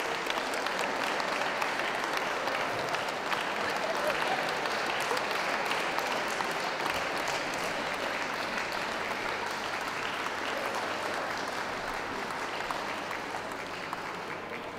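Audience applause: many hands clapping steadily, dying away near the end.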